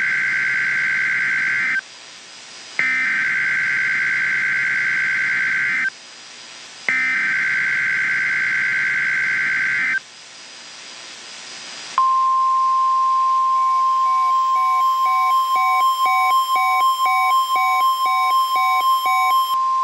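Emergency Alert System SAME data header: three screeching data bursts of about three seconds each, separated by short gaps, marking the start of a new alert. Then comes a steady 1050 Hz NOAA Weather Radio alert tone, with a beep pulsing about twice a second over it.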